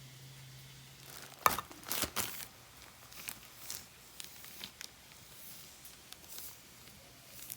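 Kitchen handling sounds: crinkling and rustling, with a few sharp clicks about a second and a half to two seconds in and lighter ticks after, over a faint low hum.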